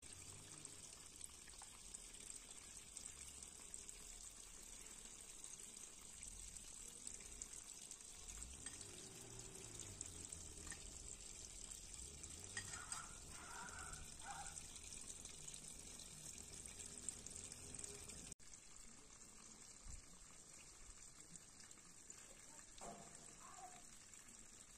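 Faint steady hiss of outdoor background noise, with a few faint short chirps around the middle and near the end.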